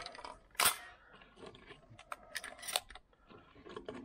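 Shotgun being reloaded: a string of sharp metallic clicks and light rattles from cartridges and the gun's action, the loudest click about half a second in.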